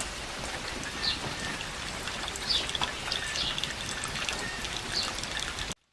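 Home-built electrode steam generator boiling: a steady patter and hiss of water bubbling and spattering in the uninsulated tank, which cuts off suddenly near the end.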